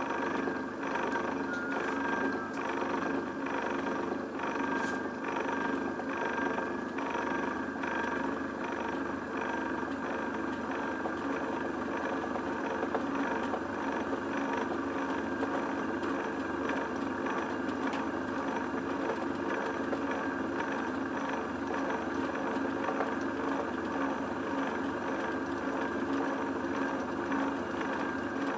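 Mill/drill spindle motor running steadily as a twist drill bores into a metal part held in a machine vice, with a faint regular pulse about twice a second.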